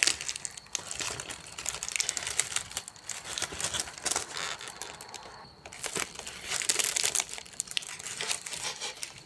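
A dried flower crown and its small cardboard box being handled, the dry flowers and packaging crinkling and crackling in quick irregular bursts, with a brief pause about five and a half seconds in.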